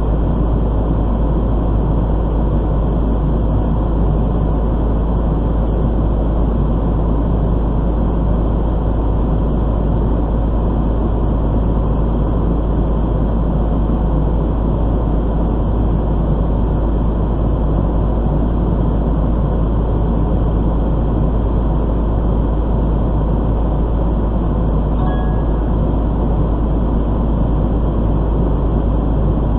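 Fire engine's diesel engine running steadily, a loud constant low drone picked up by the dashcam in its cab. A brief faint tone sounds about 25 seconds in.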